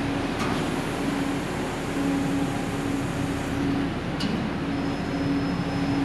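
Car ferry's engines and machinery running with a steady hum and drone, broken by two short sharp clicks, one near the start and one about four seconds in.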